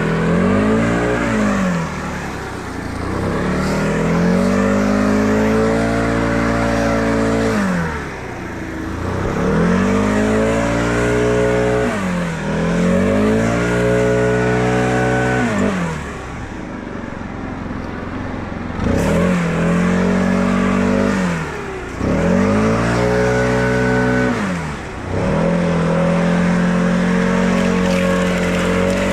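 An engine repeatedly revving up and dropping back. Its pitch falls and climbs again about eight times, every two to four seconds.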